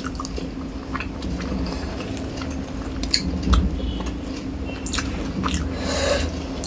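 A person chewing a mouthful of rice and fish curry, with scattered wet mouth smacks and small clicks.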